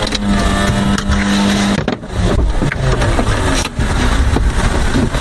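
A car engine running with a steady hum, its pitch then wavering up and down from about two seconds in, with a few sharp knocks.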